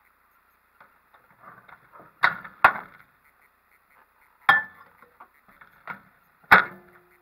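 A few sharp knocks and clunks of objects being handled and set down on a workbench, two close together about two seconds in, then two more spaced a couple of seconds apart, with light rustling between.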